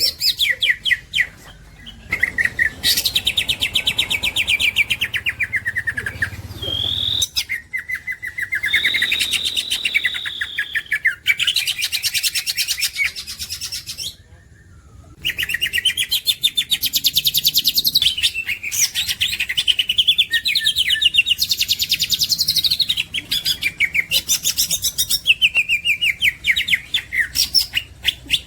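Green leafbird (cucak hijau) singing: fast chattering trills mixed with clear whistled phrases, with a short pause about halfway through.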